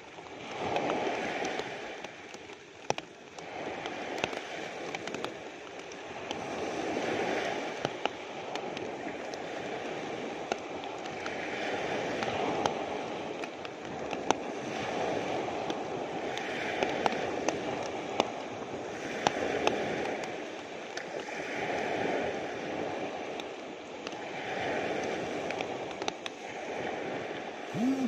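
Small sea waves breaking and washing up a pebbly beach, swelling and easing every few seconds, with rain falling and scattered sharp drip ticks close by.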